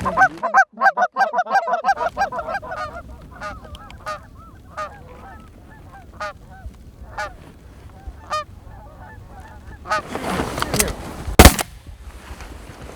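A flock of geese honking: a dense chorus of overlapping calls at first, thinning to scattered single honks. About eleven seconds in there is a rush of noise and then one sharp, loud crack.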